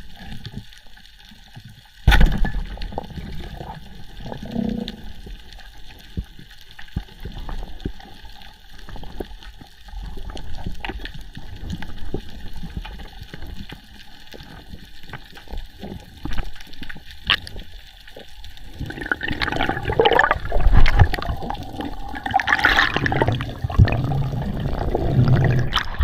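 Sea water sloshing and gurgling around the camera, with many small clicks and pops. It starts suddenly about two seconds in and grows louder and busier in the last several seconds.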